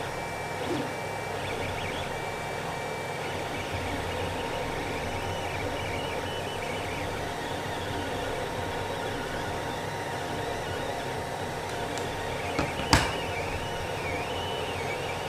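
Creality CR-10 3D printer printing: a steady fan hum under the stepper motors' whine, which rises and falls in pitch as the print head moves. One sharp click comes near the end.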